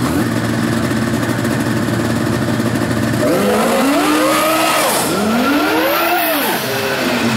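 Snowmobile engine idling steadily, then revved up and back down twice before settling to idle again near the end.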